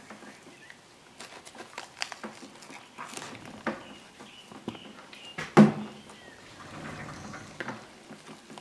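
Knife and gloved hands working inside a hanging roe deer carcass while the rectum is cut free during gutting: scattered small clicks and handling noises, with one louder knock about five and a half seconds in.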